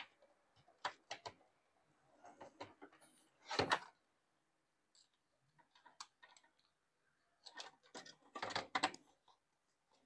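Small clicks and knocks of hands handling a washing machine's plastic pressure switch, its wires and the console panel while fitting the switch in place. There is a louder knock about three and a half seconds in and a cluster of clattering near the end.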